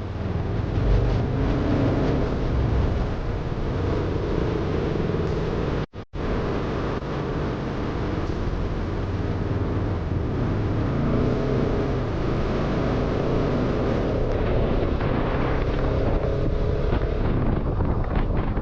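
Single-cylinder 200 cc motorcycle engine running at speed under way, with heavy wind buffeting on the action camera's microphone. The sound drops out briefly about six seconds in.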